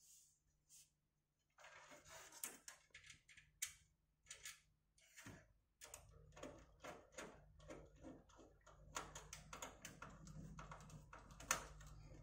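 Faint, irregular clicking, tapping and light scraping of a computer power supply (SMPS) being handled and fitted into a metal PC cabinet.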